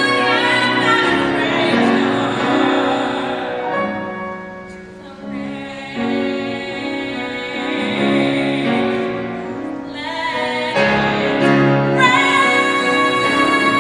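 A woman singing a solo musical-theatre song live, in long held notes with vibrato. The singing softens in the middle, then she holds a long, loud high note near the end.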